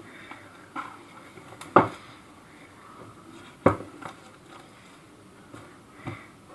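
Hands handling a shrink-wrapped cardboard phone box, with light plastic-film rustling and two sharp knocks, the first under two seconds in and the second about two seconds later. A few fainter ticks fall around them.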